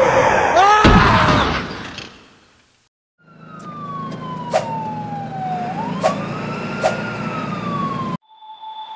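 Ambulance siren sound effect: one slow wail that falls, rises again and starts to fall, over a low engine rumble with a few sharp clicks, cut off suddenly near the end. Before it, a loud rushing noise with a few quick chirps fades out over the first two and a half seconds.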